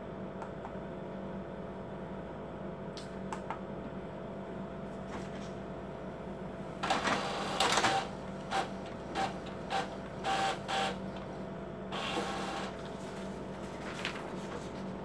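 Epson L4160 ink-tank inkjet printer running a print job. About seven seconds in comes a run of short mechanical whirs and clacks lasting about four seconds, then one more burst about a second later, as the paper feeds and the print head moves.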